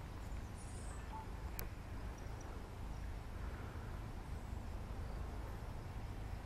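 Quiet trackside ambience: a steady low rumble under a faint even hiss, with a few soft ticks and brief faint chirps.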